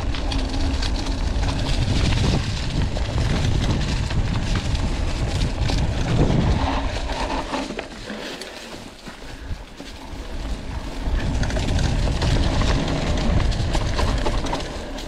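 Riding noise of a mountain bike on a rough dirt track: wind buffeting the microphone over the rattle and rumble of the bike and its tyres. It starts suddenly and eases for a couple of seconds about halfway through.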